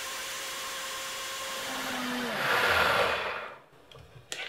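High-powered countertop blender running at speed, blending a liquid mix of oats, sunflower seeds and soy milk into a creamy base. It gets louder just before three seconds in, then winds down and stops, followed by a light click or two.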